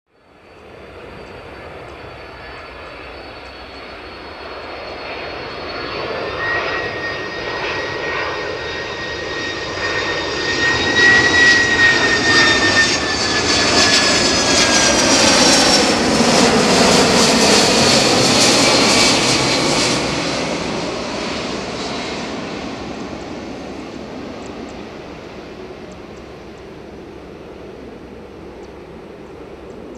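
A Boeing 767-300ER freighter's twin jet engines on final approach, passing low overhead: the engine whine grows louder, peaks about halfway through, drops in pitch as the plane goes past, then the rumble fades away.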